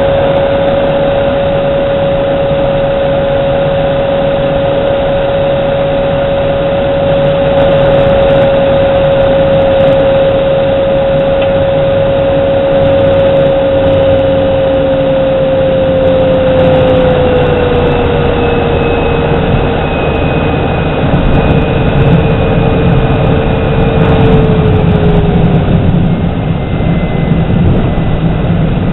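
Single-engine propeller plane's engine and propeller droning, heard in the cabin during landing. A steady tone in the drone holds, then falls in pitch over the second half as power comes off. A rougher low rumble joins about two-thirds through as the plane rolls out on the snow-covered runway.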